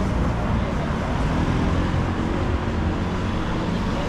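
Steady city traffic noise: motor vehicles running along a busy street.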